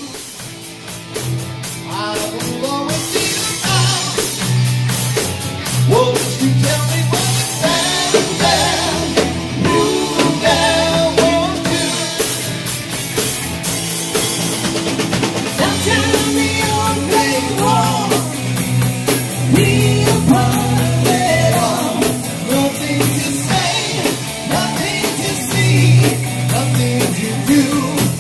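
A live rock-and-blues trio playing a song: electric guitar, bass guitar and drum kit, with a man singing lead into the microphone.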